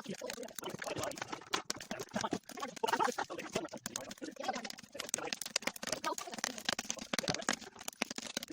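Dense, irregular crackling and snapping of wood sticks.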